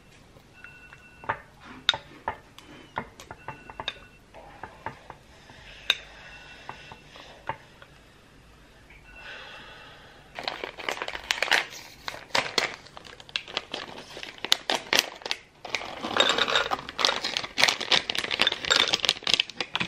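Dishes, cutlery and packaging being handled: scattered clicks and clinks, then a dense run of crinkling and clattering from about halfway on. A few faint short beeps sound in the first half.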